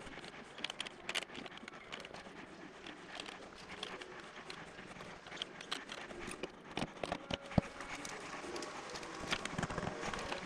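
Irregular small clicks, taps and handling noises of PC components being fitted by hand, with one sharp click about seven and a half seconds in.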